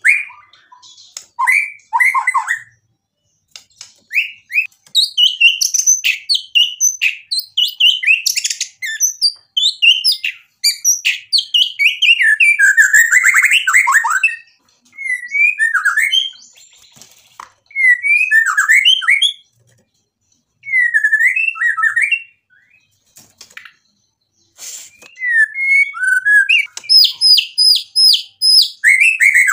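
Male white-rumped shama singing in loud bursts of rapid, varied whistles and chattering phrases, a song packed with mimicked material (isian), with short pauses between phrases. Near the end comes a fast run of repeated high whistles.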